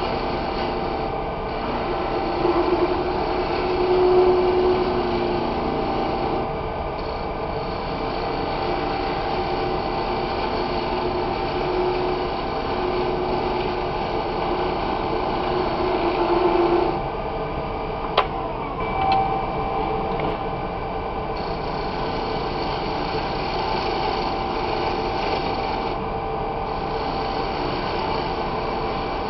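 Wood lathe running steadily while a turning gouge, bevel riding the wood, cuts the outside of a spinning tobacco pipe bowl blank. The cut swells louder twice, around four seconds in and again near seventeen seconds, and there is a single sharp click soon after the second swell.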